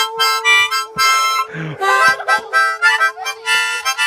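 Harmonica played in the blues style, in a run of short chord blasts a few tenths of a second apart over one long held note.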